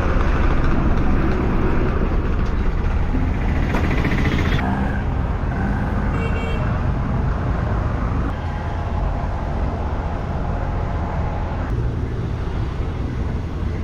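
A motor engine running steadily close by amid traffic noise, with a short horn toot about six seconds in.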